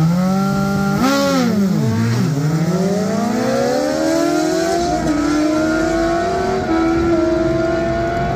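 Suzuki GSX-R1000 inline-four sportbike launching down a drag strip. The engine jumps up in revs, rises and dips, then climbs in one long rising pull, with small drops in pitch at the upshifts about five and seven seconds in.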